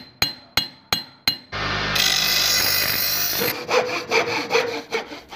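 Workshop tool sound effects. First comes a quick run of five sharp ringing knocks, then about two seconds of steady harsh machine noise, then rhythmic back-and-forth sawing strokes, roughly two to three a second, that stop just before the end.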